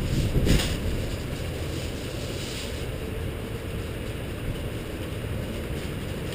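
Rainstorm ambience: a steady low rumble of wind on the microphone with a faint hiss of rain, and a brief louder burst about half a second in.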